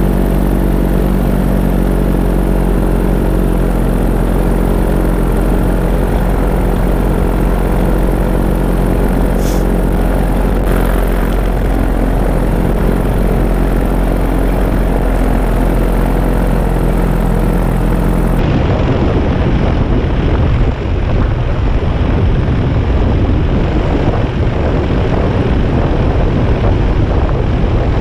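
Paramotor engine and propeller running steadily in flight. About eighteen seconds in the sound changes abruptly to a rougher, noisier rumble with heavy low end.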